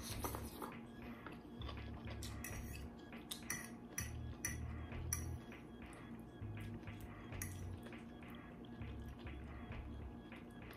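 Metal fork clinking and scraping against a plate in scattered light clicks, with quiet chewing between them.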